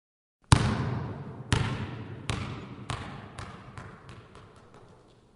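A basketball dropped on a hardwood gym floor, bouncing about a dozen times, each bounce quicker and quieter than the last until it settles, every bounce echoing in the hall.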